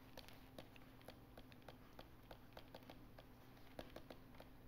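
Near silence with faint, irregular light taps, a few each second, of a stylus on a tablet screen as words are handwritten.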